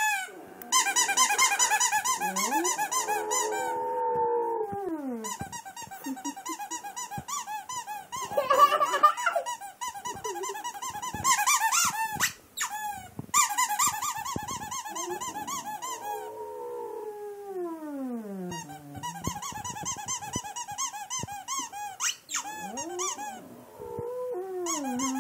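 A squeaky toy squeaked over and over in rapid runs while a boxer dog howls along to it. The dog's several long howls slide down in pitch.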